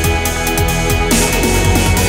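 Electronic background music with a steady beat, sustained synth tones and repeated falling bass slides.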